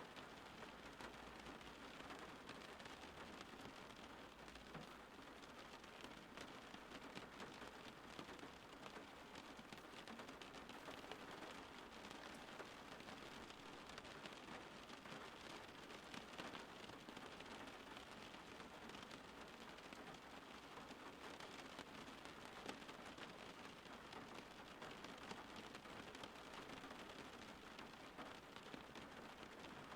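Steady rain falling: a faint, even hiss of many raindrops with a fine patter, unchanging throughout.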